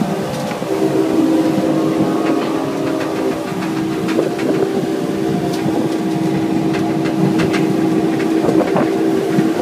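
Small boat's engine running steadily under way, a constant droning note over the rush of water churned up in its wake, with scattered splashes and knocks.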